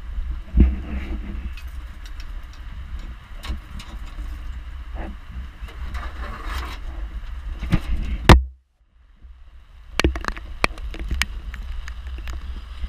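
Storm wind buffeting the microphone in a steady low rumble, with scattered knocks from the handheld camera. The sound cuts out almost completely for about a second just past halfway.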